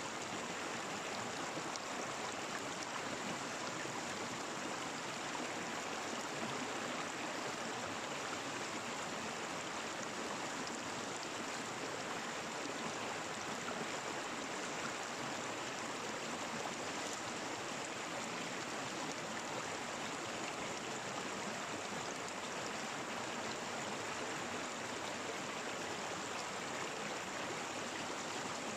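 Running water of a small stream, a steady even rush with no breaks.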